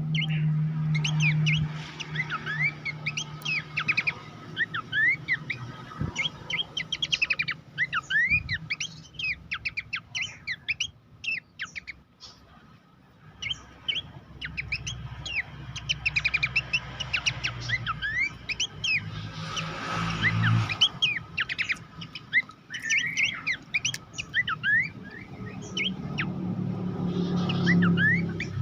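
Pelanduk semak babbler song from a bird-mastering recording: a dense run of short, sharp, sweeping chirps and whistles, thinning out to a quieter spell about a third of the way in before picking up again. A low steady hum sits underneath at the start and near the end.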